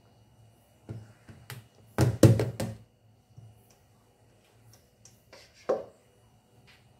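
Knocks and taps of a spatula against a small plastic container handled on a kitchen countertop. There are light taps about a second in, a quick cluster of about four louder knocks about two seconds in, and one more knock near the end.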